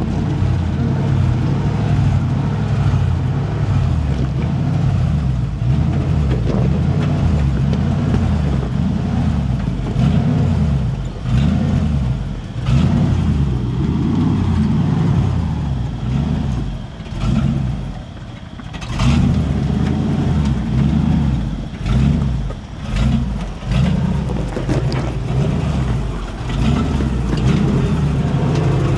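Caged Jeep Wrangler TJ's engine working under load as it crawls up a rocky ledge, with a steady low rumble. About two-thirds of the way in it eases off, then rises and falls in short throttle surges about once a second.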